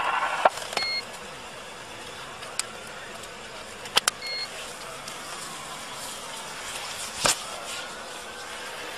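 Wipes being pulled from a plastic flip-top canister and the canister handled, giving a few sharp clicks, a double click about four seconds in. Two short electronic beeps sound about a second in and again just after four seconds, over steady background noise.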